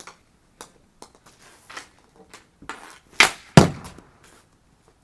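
Street hockey shots: sharp cracks of a stick slapping plastic pucks and of the pucks hitting the target wall. Several light knocks come first, then two loud cracks a fraction of a second apart a little past halfway.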